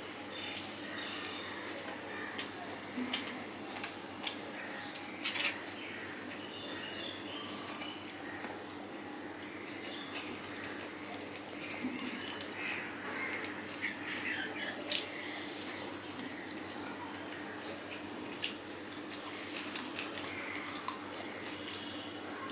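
Close-up hand-eating sounds: fingers picking apart fried fish on a steel plate and wet chewing, with scattered small clicks and taps. A faint steady low hum runs underneath.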